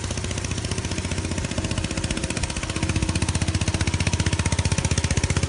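Small fishing-boat engine running on pure LPG, part throttle, with a steady rapid beat of firing pulses that grows louder about three seconds in.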